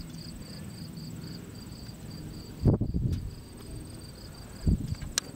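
Insects chirping: a steady high-pitched pulsed call repeating about four times a second, with a finer, higher trill running over it. A couple of low thumps on the microphone, about halfway through and near the end, are louder than the insects.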